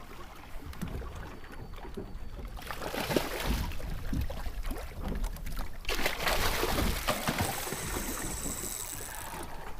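Wind and sea noise on an open fishing boat, with scattered knocks and handling sounds on deck; the noise grows louder and brighter about six seconds in.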